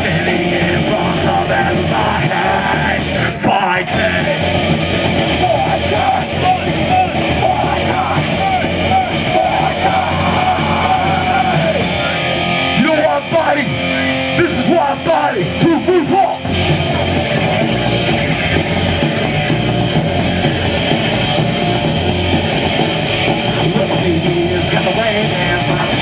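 Live rock band playing loud, with shouted vocals over distorted electric guitars, bass and drums. About 12 seconds in the sound thins for a few seconds, and the full band comes back in around 16 seconds in.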